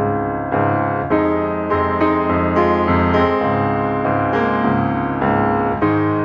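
Background piano music, a gentle melody with new notes struck about twice a second.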